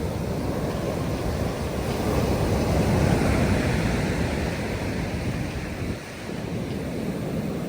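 Atlantic Ocean surf washing on the beach, a wave swelling to its loudest about three seconds in and then easing off, with wind buffeting the microphone.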